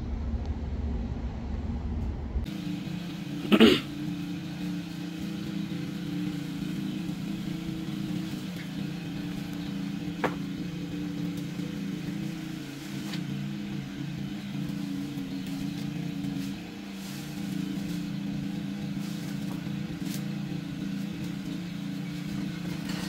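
An engine on tree-cutting equipment runs steadily at an even pitch, starting a couple of seconds in. A brief, sharp, loud sound comes about three and a half seconds in, and a small click near the ten-second mark.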